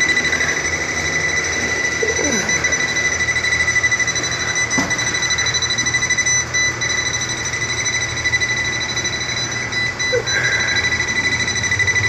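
Non-contact voltage tester beeping rapidly and continuously at a high pitch as it is swept along the wall, signalling live voltage from the knob-and-tube wiring inside.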